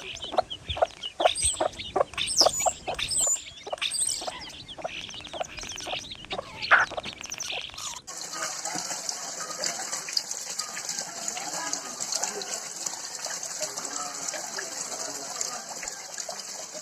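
Chickens clucking, with high chirps among the calls. About halfway through it cuts suddenly to a steady rush of gushing water.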